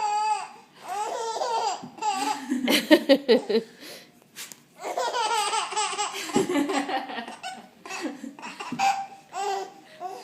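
Baby laughing in long repeated fits of belly laughter, high and breathy, with short pauses between the runs.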